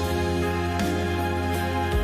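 Background music: slow, sustained instrumental chords.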